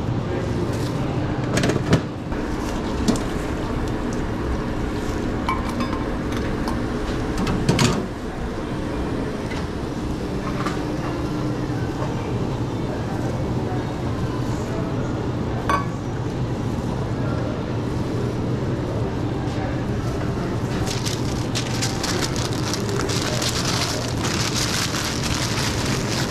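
Hands assembling a sub on a counter: a few knocks and clinks of handling a metal bowl and utensils, the sharpest about two and eight seconds in, over a steady hum. In the last five seconds the sandwich is rolled in its paper wrap, giving a dense crinkling.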